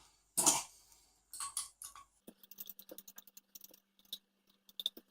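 Rapid light clicking and ticking as the differential case of a 1/16-scale RC monster truck is taken apart, after a couple of brief handling noises. A faint steady hum sits under the clicks from about two seconds in.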